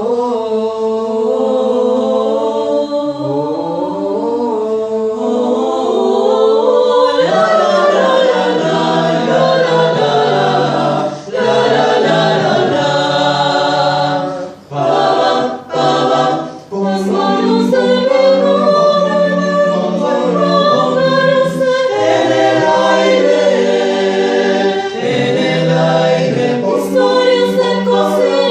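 Chamber choir singing a cappella in several parts. Fewer voices carry the opening, the fuller choir comes in about seven seconds in, and there are a few short breath pauses in the middle.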